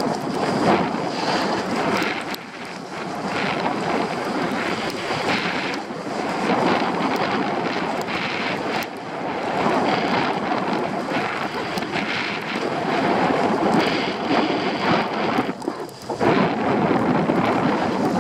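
Skis scraping and hissing over packed snow during a downhill run, with wind rushing over the microphone. The noise swells and eases every few seconds and drops away briefly near the end.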